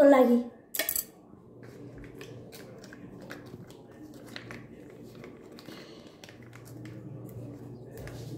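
A voice calls out briefly at the start, then a sharp click, then faint crinkling and light ticks as a small plastic sachet is handled and torn open.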